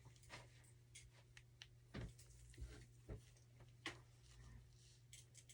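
Near silence: room tone with a low hum and a few faint, scattered taps and rustles from hands handling the wig.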